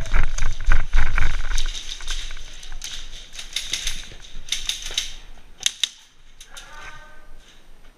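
Handling and movement noise from a body-worn camera during fast movement: thuds and rattling, loudest in the first second and a half, then scattered sharp clicks and knocks. A brief pitched squeak comes near the end.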